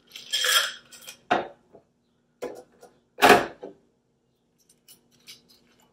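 Bar tools handled on a counter: a few separate knocks and clatters, the loudest about three seconds in, as a metal cocktail strainer and shaker are set down. Near the end, faint squeaky ticks as a bourbon bottle's stopper is twisted open.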